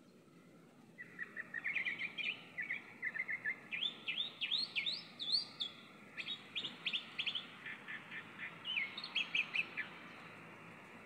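Chalk-browed mockingbird singing, starting about a second in: a long, varied song of quick chirp runs and rising whistled notes in short repeated phrases with brief pauses between them.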